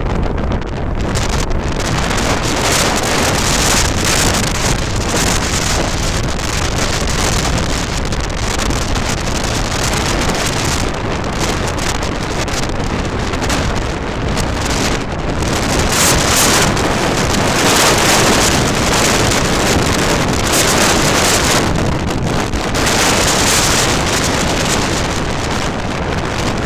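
Strong gusting wind hammering the microphone while the fabric of a Forclaz Trek 100 tent flaps and snaps hard in the gale. The gusts swell about two-thirds of the way through.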